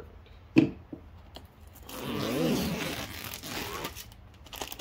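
Packaging rustling and tearing as contents are pulled out, with one sharp knock about half a second in.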